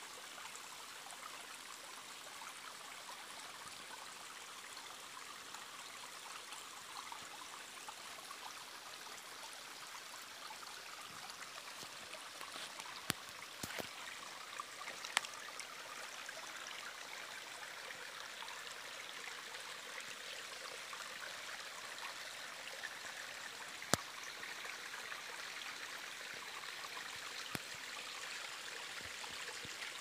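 Shallow forest stream running over stones and pebbles, a steady trickle of water. A few sharp clicks stand out around the middle and again later.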